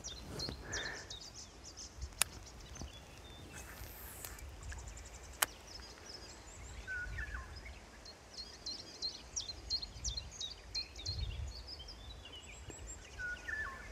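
Songbirds chirping, most busily in the second half, over a low steady rumble, with two sharp clicks about two and five seconds in, the second the loudest.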